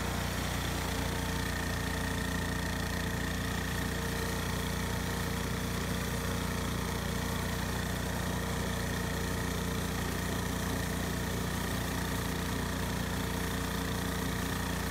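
Mini tracked rice combine harvester running steadily while it cuts and threshes standing rice. The engine drone is even throughout, with a thin steady high whine over it.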